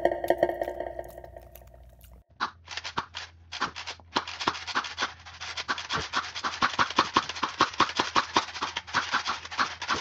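Electronic music fades out, then a Nerf Rival XVII-3000 foam-ball blaster fires on full auto from about two seconds in. It gives a rapid string of sharp snaps, a few at first, then about six a second, over a low motor hum.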